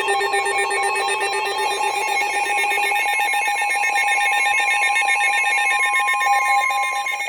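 NOAA Weather Radio 1050 Hz warning alarm tone: one steady, high, continuous tone that cuts off just before the end, over several other buzzing, warbling tones from the radio signal.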